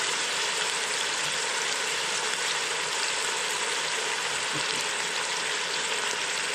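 Cubed raw chicken thighs sizzling in oil in the stainless inner pot of an Instant Pot on its sauté setting: a steady frying hiss.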